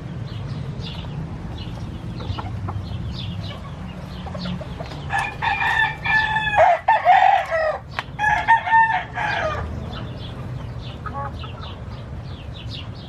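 Chickens clucking and peeping, with a rooster crowing loudly from about five to nine and a half seconds in. A steady low hum runs underneath.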